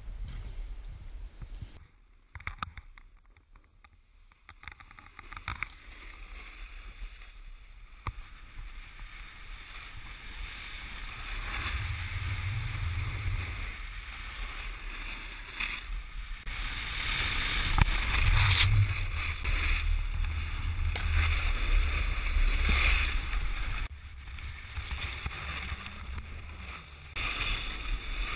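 Snowboards sliding and scraping over packed snow, a shifting hiss, with a low rumble of wind on the microphone of a camera moving along with the riders. Nearly drops out a few seconds in and is louder in the second half.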